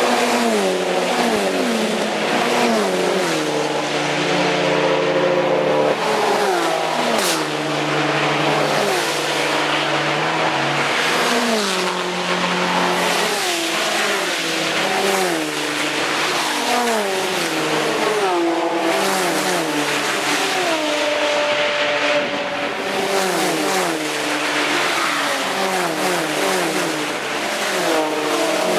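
Race cars' engines at full throttle, passing one after another and overlapping. Each engine's pitch climbs and then drops back in steps as it shifts up through the gears.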